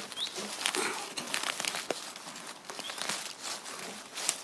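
Dry leaf litter and soil rustling and crackling as the woodland floor is dug into by hand, with irregular scratchy clicks.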